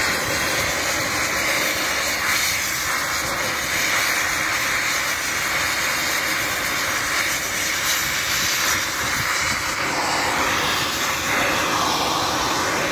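Oxy-fuel cutting torch running with a steady hissing roar as it cuts through the worn bearing on a differential gear shaft, to free the bearing for replacement.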